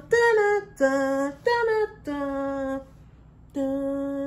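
A woman singing a wordless tune: five held notes that alternate between a higher and a lower pitch, with a short pause before the last one.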